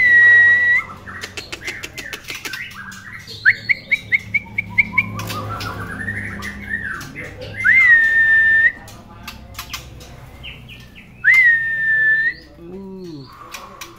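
Young white-rumped shama (murai batu) calling from its cage: three loud, level whistles of about a second each, every one rising into a held note, with short chirps, a slow rising glide and a quick run of clicks in between.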